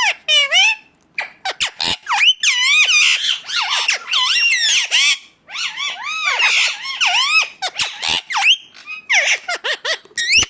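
Indian ringneck parakeet giving rapid, high-pitched squawking calls in quick runs, with brief pauses about a second in, at around five and a half seconds and near eight and a half seconds.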